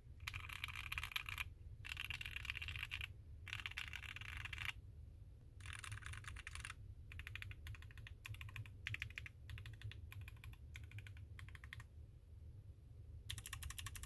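Typing on a homemade gasket-mount mechanical keyboard with a CNC-machined, powder-coated metal case. Fast runs of keystrokes alternate with short pauses, give way to slower single key presses about halfway through, and return as a fast run near the end.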